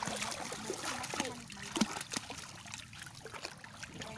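Shallow seawater at the shoreline trickling and lapping, with scattered small splashes from children's hands in the water. Brief faint child vocal sounds come through now and then.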